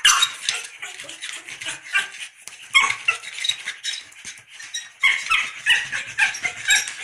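Pug whining and yapping in repeated short, high-pitched bursts, the frustrated crying of a dog that wants its toy back.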